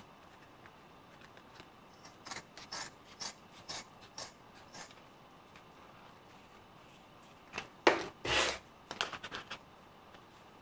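Large scissors cutting through grey fur fabric: a run of short snips a few seconds in, then louder, longer cuts near the end.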